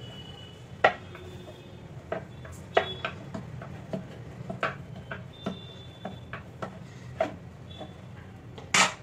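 Stiff maida dough being kneaded by hand on a wooden chopping board: irregular knocks and taps as the dough is pressed, turned and set down on the board, the loudest about a second in and near the end.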